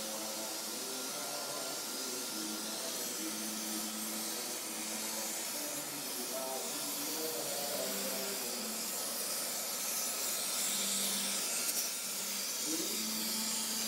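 Gas torch flame hissing steadily while it heats a joint on a cast bronze part, a little louder in the last few seconds.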